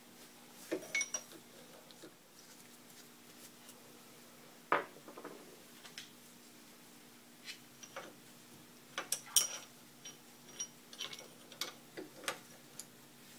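Light metallic clicks and taps from screws and a hand tool being handled against the gearbox of an Atlas lathe during disassembly, scattered and irregular. The sharpest tap comes about five seconds in, with a quick run of clicks around nine seconds, all over a faint steady hum.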